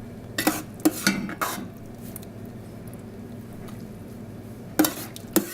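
Kitchen utensils knocking and scraping against dishes: a quick cluster of clinks about half a second in, and two more sharp clinks near the end.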